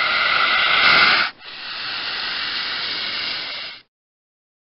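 A snake hissing: one long, loud hiss that breaks off about a second and a half in, then a second, slightly quieter hiss that stops sharply near the end.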